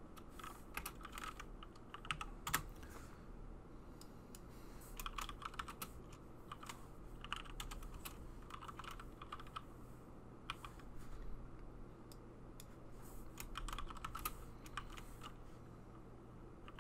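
Computer keyboard typing: quiet keystrokes in several short bursts with pauses between them, over a faint steady low hum.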